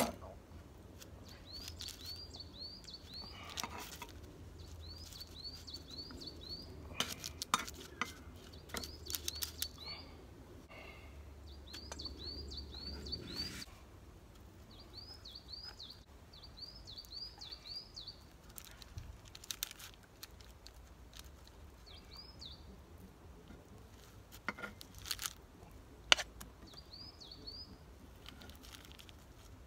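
A small songbird singing repeated phrases of four to six quick high chirps, with a few sharp clicks of a metal knife and wooden spoon against a cast-iron Dutch oven as dough is spooned in.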